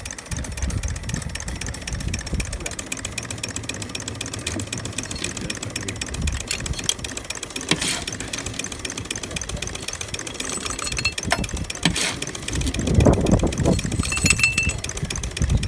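Live-steam model steam locomotive standing in steam, with a fast, steady mechanical ticking and hiss. A louder rush of steam comes about 13 seconds in.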